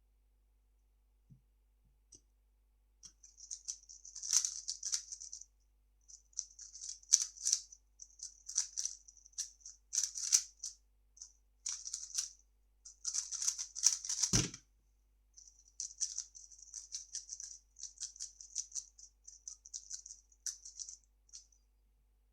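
A 3x3 speedcube being solved: quick bursts of clicking plastic layer turns, a second or two each, with short pauses between them. About two-thirds of the way through there is a single low thump.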